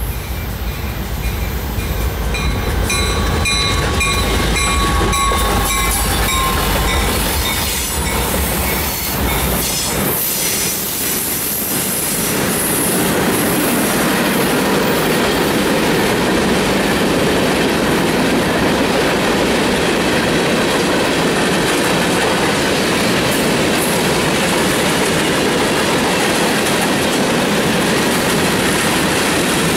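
CSX freight train passing close by: GE diesel locomotives go by with a deep engine rumble for about the first ten seconds, with a thin falling whine partway through. Then a string of tank cars rolls past with steady wheel-on-rail noise.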